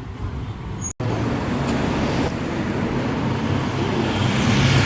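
Motor vehicle running on a road, with traffic noise, starting abruptly about a second in and growing a little louder toward the end.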